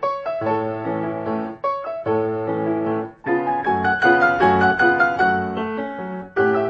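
Solo piano music: phrases of melody over chords, with short breaks between the phrases.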